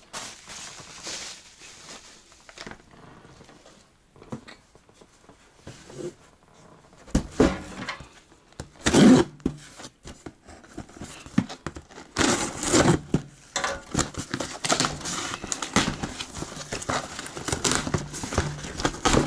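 A cardboard shipping box being handled and torn open by hand: a few knocks and one loud thump near the middle, then, from about two-thirds in, continuous ripping of cardboard and tape with crinkling of packing.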